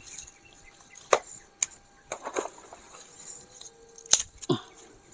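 Knife chopping and splitting a small wooden stick: about five separate sharp cracks and taps, the loudest about a second in and about four seconds in.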